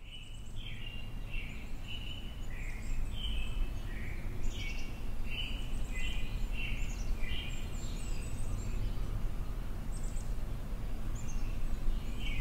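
Several songbirds singing in woodland, short chirping phrases overlapping one another, over a steady low rumble of outdoor ambience.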